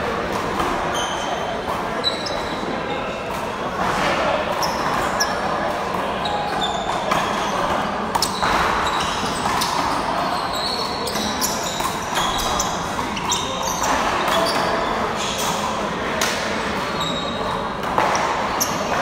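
Rubber handball being slapped by hand and striking the wall and floor in a rally, over and over, with sneakers squeaking on the court floor. The large hall gives it an echo.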